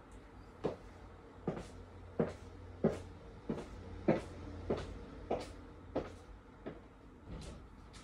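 Christian Louboutin Pigalle 120 stiletto heels clicking on a wooden floor in steady walking steps, about three every two seconds. A low steady hum runs underneath.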